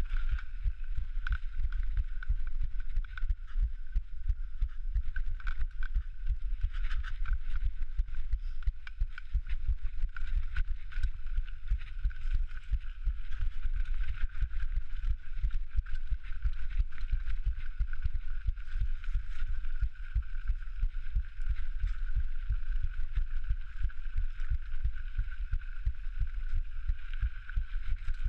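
Mountain biker's heartbeat: low thumps inside a steady low rumble, with a faint steady whine higher up.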